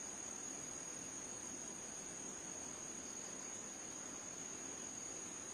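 Insects trilling, a steady high-pitched tone that holds without a break, over a faint hiss.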